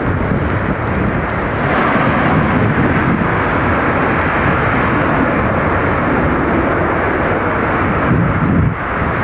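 Jet airliner's engines running with a loud, steady roar that swells slightly after a couple of seconds and drops off abruptly near the end.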